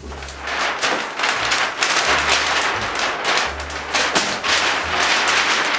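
Wrapping paper crackling and crinkling as it is handled and folded, over background music.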